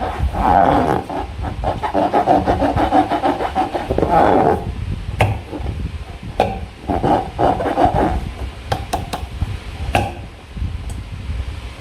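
Slime being squished and worked by hand: repeated sticky squelches, with fast crackling clicks through the first few seconds and separate squishes and pops after.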